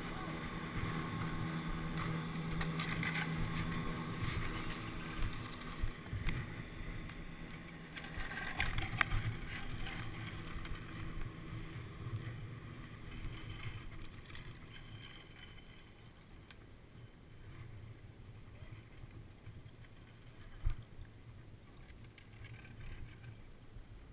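Platter drag lift towing a snowboarder uphill: a steady machine hum at the lift station for the first few seconds, a few knocks and clatter as the lift pole takes up the load, then the board's hiss over packed snow, growing quieter, with wind on the helmet microphone.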